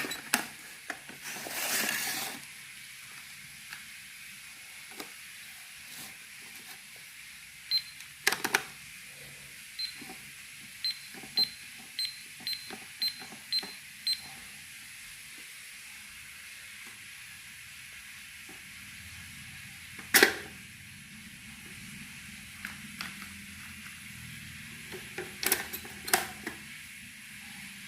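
Toy frog cash register being played with: scattered plastic clicks and knocks, and a run of short high electronic beeps, about two a second, as its keys are pressed. A louder sharp clack comes about twenty seconds in.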